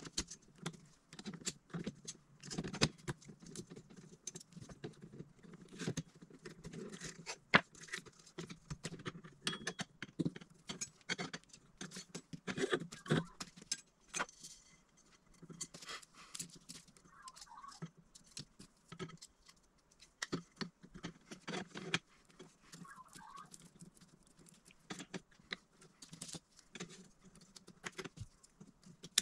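Irregular clicks, taps and small rattles of hands handling cable parts and the aluminium frame of a laser engraver while threading a new cable through it.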